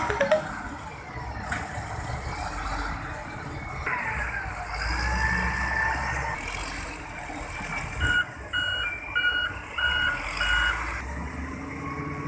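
Kobelco SK65 excavator's diesel engine running, with hydraulic whine rising and falling in pitch as the machine works, and a sharp knock just after the start. About eight seconds in, its travel alarm beeps five times, roughly every half second.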